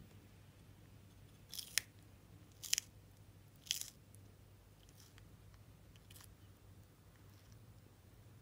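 Horsfield's tortoise biting and tearing crisp lettuce leaves: three sharp crunches about a second apart, then a couple of fainter bites.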